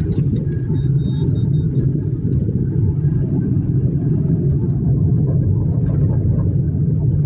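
Kia Picanto being driven on a road test: a steady low rumble of engine and road noise, the car running smoothly after a throttle calibration.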